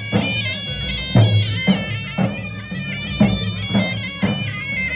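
Live Tunisian folk band: reed shawms play a winding melody over large double-headed tabl drums beaten in a heavy, repeating pattern.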